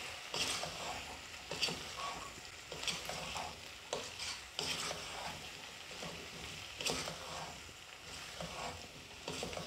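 Mixed vegetables sautéing in coconut oil in a nonstick pot, stirred with a wooden spatula: a steady sizzle broken by irregular scraping strokes of the spatula against the pot.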